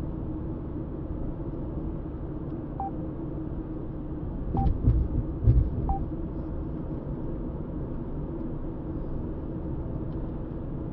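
Steady low rumble of car road and engine noise heard from inside a moving car. A few louder low thumps come about halfway through, along with three brief, faint beep-like tones.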